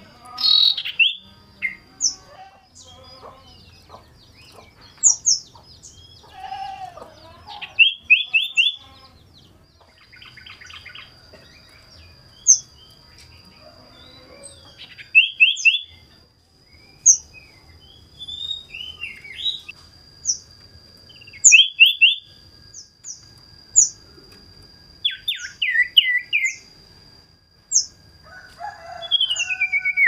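Female sirdung, the cipoh or common iora, calling from its cage: a varied run of short sharp chirps and quick rattling trills, with pauses between bursts. A steady thin high whine runs underneath.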